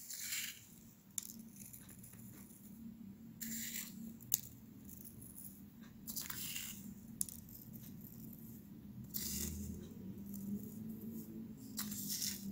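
Pinches of nigella and sesame seeds sprinkled by hand, pattering onto dough buns and parchment paper in about five short rustling bursts a few seconds apart, with a few light clicks, over a faint steady low hum.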